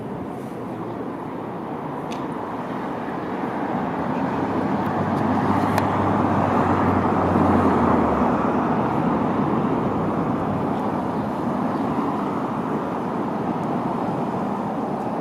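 Road traffic noise that swells to its loudest about halfway through as a vehicle goes by. A low engine hum stops at about the same point.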